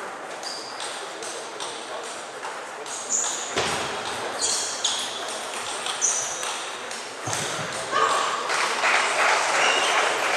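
Table tennis balls clicking on tables and bats in a hall, many short sharp pings at an uneven pace. The clicks grow louder and busier near the end.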